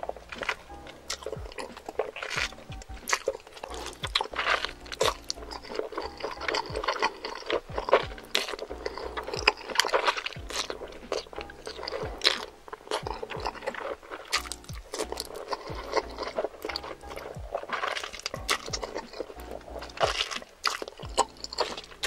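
Close-miked slurping and chewing of spicy fire noodles, a dense run of wet smacks and clicks, over soft background music.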